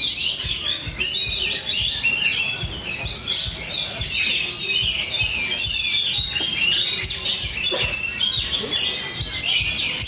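Several caged songbirds singing at once in a contest, a dense, unbroken stream of rapid chirps and trills overlapping one another, over a low background rumble.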